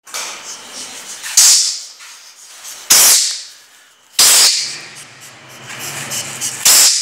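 A mongoose caught in a rat trap hissing four times, each a sudden loud hiss that fades within about half a second, spaced one to two and a half seconds apart.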